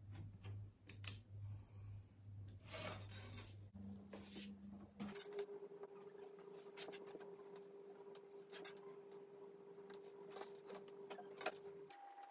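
Craft knife slicing thin gampi paper along a cork-backed metal ruler on a cutting mat: faint scrapes and light clicks as the blade is drawn and the ruler and paper are shifted, over a low steady hum that changes pitch a few times.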